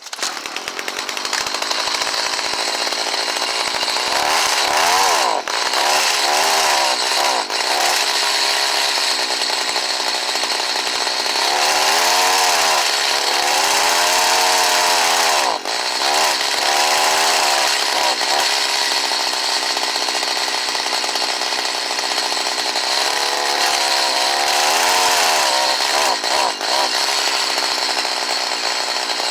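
Stihl HS45 hedge trimmer's two-stroke engine catching on a cold start and running, revved up and down several times between steadier stretches. It starts and runs as it should now that its worn air filter housing has been replaced.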